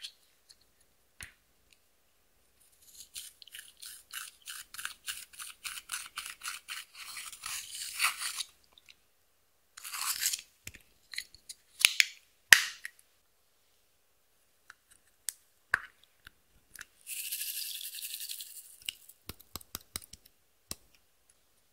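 Pressed eyeshadow scraped out of its compact pan with a small tool in quick scratchy strokes, about four a second. Midway there are a few sharp clicks. Near the end a brief hiss comes as glitter is sprinkled into the glass dish, followed by light ticks.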